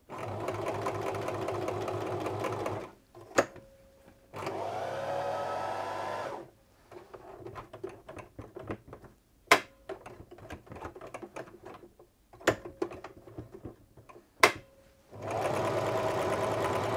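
Domestic electric sewing machine stitching through fabric in three short runs of two to three seconds each, running freely with the bobbin winder disengaged. The second run speeds up and slows down again. Sharp clicks and small knocks fall between the runs.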